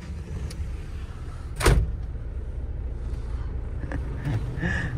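Vehicle engine running steadily, heard from inside the cabin, with a single loud thump about a second and a half in.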